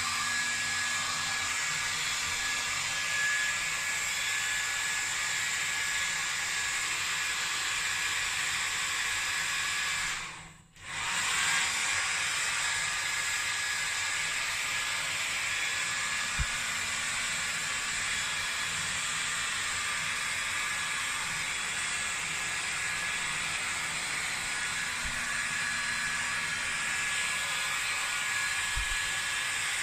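Hair dryer blowing steadily. It drops out for about a second about ten seconds in, then runs on unchanged.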